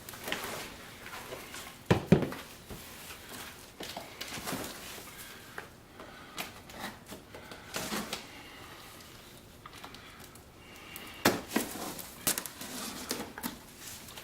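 Cardboard box being opened and its packing handled: rustling and crinkling with scattered knocks and thumps, the loudest about two seconds in and again around eleven seconds in.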